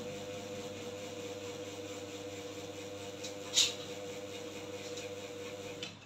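A steady low electrical hum, with one short, sharp chirp from a caged songbird about three and a half seconds in and a few fainter chirps around it.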